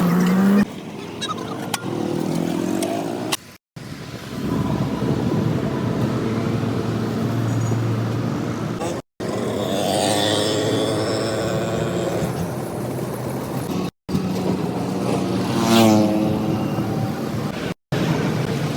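Vehicle engines running, heard in several short clips joined by abrupt cuts. In one clip an engine revs up and back down.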